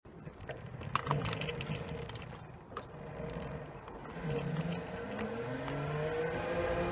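Electric motors of a PathWay Off Road ES6 S self-balancing personal transporter whining under a low rolling rumble, the whine growing louder and rising slowly in pitch toward the end as it speeds up. A few sharp clicks about a second in.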